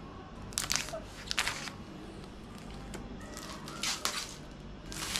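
Clear plastic wrap being torn and peeled off a new MacBook Air's cardboard box, crinkling in a few short rips, then a longer one near the end.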